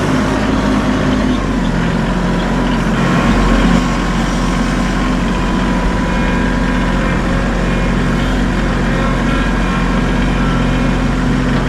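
A heavy machine's engine running steadily at constant speed, a little louder for a moment about three to four seconds in.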